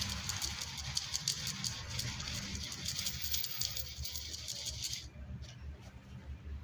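Dried, crushed chicken bone fragments rattling in a kitchen sieve as it is shaken to sift bone meal, a dense run of small clicks that stops about five seconds in.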